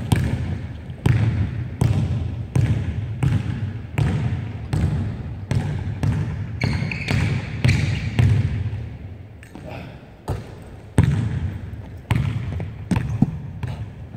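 Basketball being dribbled on a hardwood gym floor, about one and a half bounces a second, each bounce echoing around the large hall, with a few high sneaker squeaks partway through. After a short lull there is a louder bang a little past halfway, then the ball bounces irregularly on the floor.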